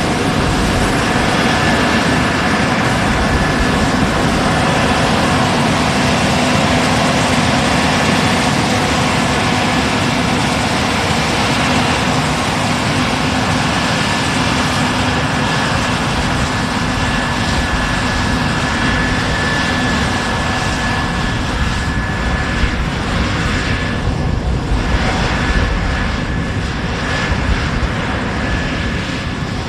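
Case IH Axial-Flow 6140 combine running steadily while harvesting soybeans: a loud, even machine drone with a steady high whine over it.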